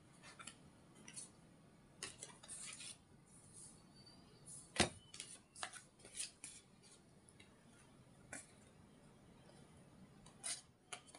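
Tarot cards being handled: faint flicking and rustling as a few cards are drawn and sorted by hand, with scattered light clicks and one sharper click a little under five seconds in.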